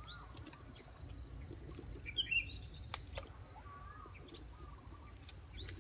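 Steady high-pitched insect drone, like crickets, with a few short bird chirps and a single sharp click about three seconds in.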